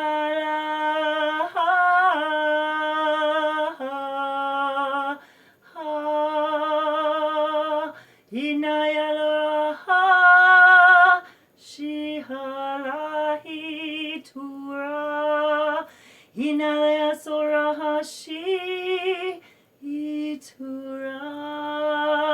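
A woman singing alone, unaccompanied, in long held notes with a wavering vibrato. The phrases run one to three seconds each, with short breath breaks between them. It is light-language toning for sound healing.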